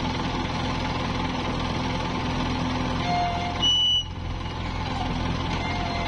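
Diesel engines of a JCB 3DX backhoe loader and a Mahindra tractor running steadily during loading, with a short high-pitched beep a little past halfway.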